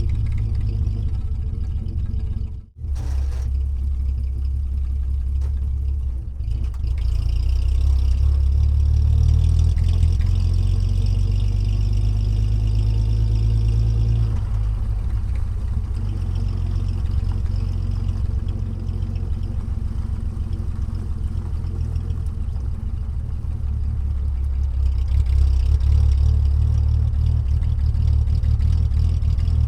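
Engine running with a steady low drone. The sound cuts out briefly about three seconds in and changes about halfway through.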